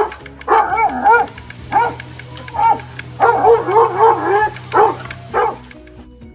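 A dog yipping and yowling in a quick string of short cries whose pitch bends up and down, in several bursts, stopping shortly before the end.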